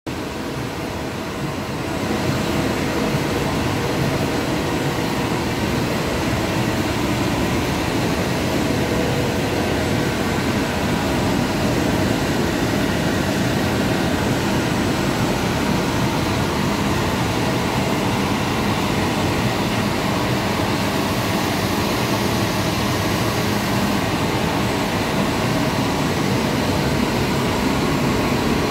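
Mono-layer LD/HD blown-film plastic extrusion machine running: a steady drone of motors and air with a few constant hum tones. It grows a little louder about two seconds in.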